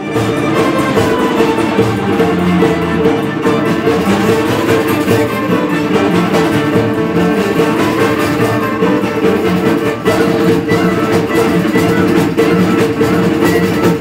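Acoustic folk ensemble playing: bowed string instruments with flute, accordion and hand drums, over a steady held note.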